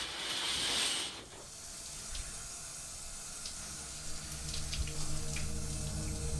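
Shower spray running onto a person, a hiss of falling water that is loudest in the first second, then steadier with faint droplet ticks. A low held music drone comes in about four seconds in.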